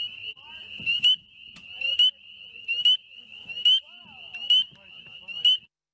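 Male spring peeper calling: a loud, rising peep repeated about once a second, six times, over a steady high-pitched chorus of other spring peepers. Everything cuts off suddenly near the end.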